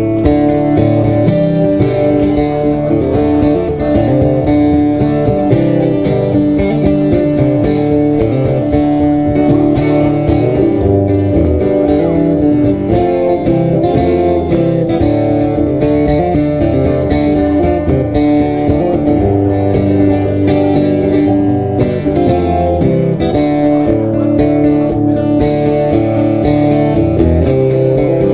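Acoustic-electric guitar playing an instrumental break in a country song, picked and strummed steadily with no singing.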